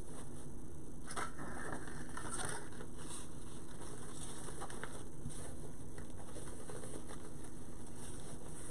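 Ribbon rustling and crinkling in short bursts as it is pulled off a spool and looped onto a bow maker, over a steady low hum.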